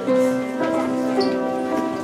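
Upright piano being played, its chords ringing on and moving to a new chord every second or so.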